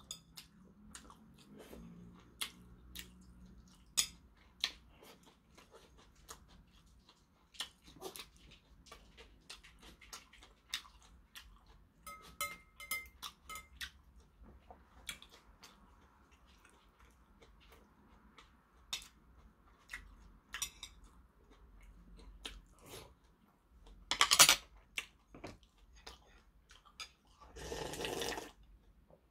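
Quiet eating sounds: chewing and scattered sharp clicks of a metal spoon and chopsticks against a porcelain bowl. Near the end, a louder drink from a glass bowl of broth, lasting about a second.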